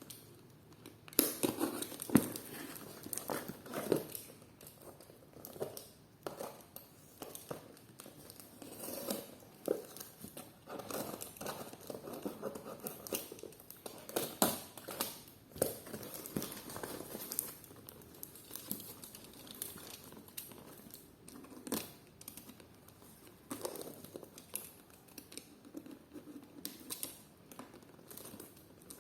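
Packaging being handled: crinkling and rustling, broken by scattered clicks and taps.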